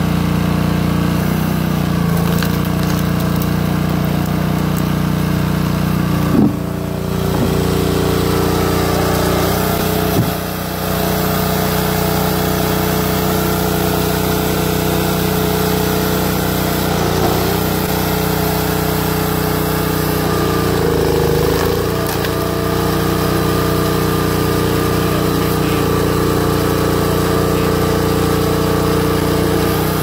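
The small gas engine of an Ariens 22-ton hydraulic log splitter runs steadily while ash rounds are split. Its note shifts now and then as the ram works through the wood. A sharp knock or crack comes twice, about six and ten seconds in.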